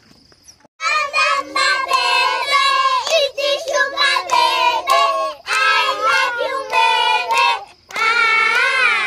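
A young child's high-pitched voice in long, drawn-out notes with no clear words, in several phrases broken by short pauses.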